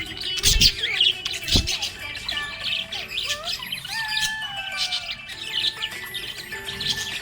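Small pet parrots chirping and squawking in a busy, continuous chatter, with a few gliding whistled notes around the middle. Two dull thumps come in the first two seconds.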